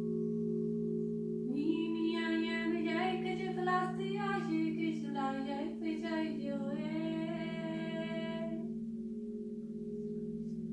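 Crystal Tones alchemy crystal singing bowls ringing with several steady, overlapping tones. From about a second and a half in until near the end, a voice sings a long wordless melodic line over them, then the bowls ring on alone.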